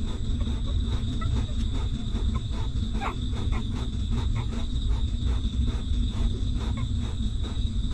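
Newborn puppies suckling at their mother: quick, irregular small wet clicks and smacks, with one brief squeak about three seconds in. Under it runs a steady low rumble and a thin steady high tone.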